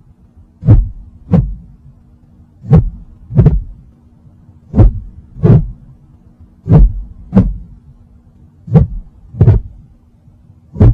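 Heartbeat sound effect: slow, deep lub-dub double thumps, five pairs about two seconds apart, over a faint steady hum.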